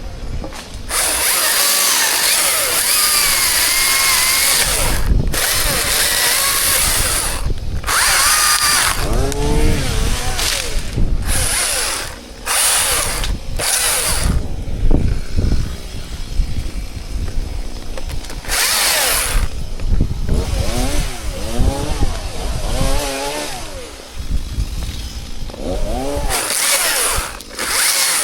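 Chainsaw running hard in repeated stretches, broken by short drops in throttle, its engine pitch rising and falling between cuts.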